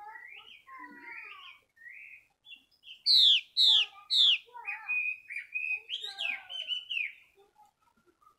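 Female Chinese hwamei singing: varied warbling phrases, then three loud falling notes about three seconds in, followed by a quick run of shorter notes.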